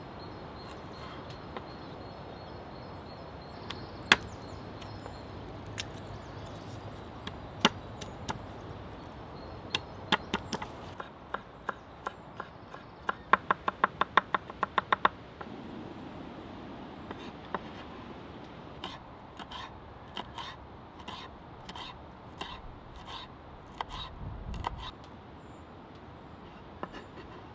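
Knife chopping on a wooden cutting board: scattered single cuts through ginger, then a quick run of about seven chops a second mincing garlic, then slower, evenly spaced chops about one and a half a second.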